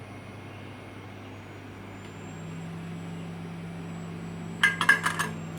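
Steady low hum of a hot air rework station running, which steps up a little about two seconds in. A quick cluster of sharp clicks comes just under five seconds in.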